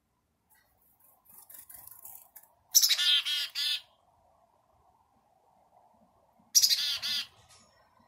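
Black-capped chickadee giving harsh chattering calls close to the microphone: two loud bursts about a second long, a few seconds apart, with fainter calls just before the first.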